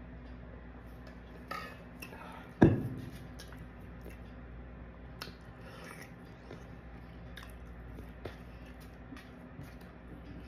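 A loud single thump about two and a half seconds in, as the tumbler is set down on the table. After it, light clicks and scrapes of a plastic fork in a foam takeout box, and chewing.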